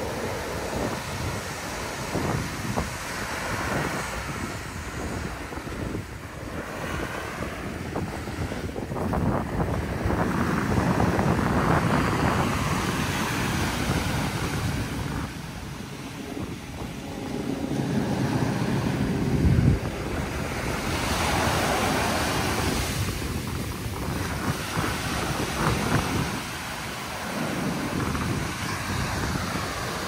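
Ocean surf at the shoreline: waves breaking and foamy swash rushing up the sand and drawing back, swelling and easing in slow surges. Wind buffets the microphone with a low rumble.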